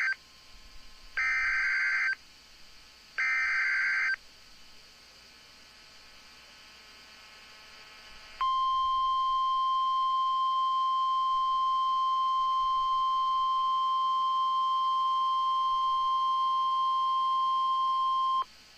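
Emergency Alert System SAME header: the end of one and two more screechy one-second digital data bursts, then after a pause of a few seconds the single steady 1050 Hz National Weather Service attention tone, held for about ten seconds and cut off sharply. It signals that a tornado warning is about to be read.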